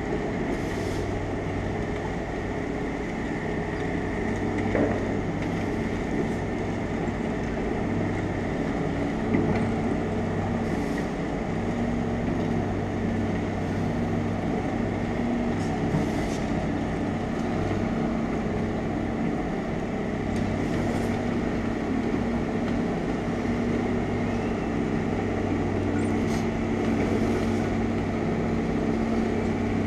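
Tracked excavator's diesel engine running steadily, a constant hum, with brief faint high-pitched sounds about every five seconds.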